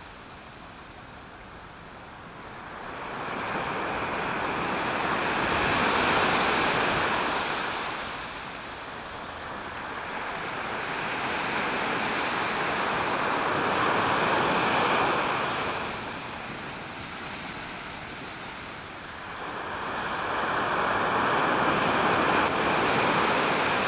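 Surf: small waves breaking and washing up a sandy beach, swelling and fading three times about eight seconds apart.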